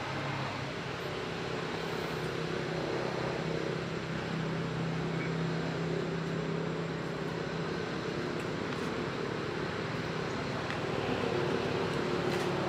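Steady low engine hum over a constant bed of outdoor noise, getting a little louder near the end.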